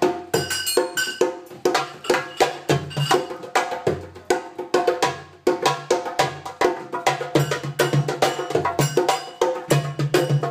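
Hand drums, one of them a djembe, played with bare hands in a quick, steady rhythm of sharp slaps over deeper open tones.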